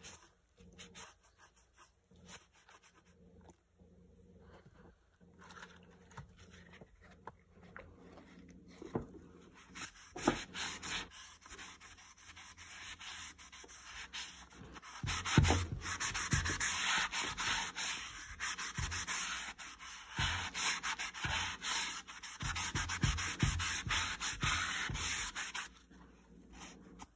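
A wet magic eraser scrubbing a boot's rubber wedge sole. Faint, scattered wiping at first, then brisk, steady rubbing from about halfway through that stops shortly before the end, with a few dull knocks along the way.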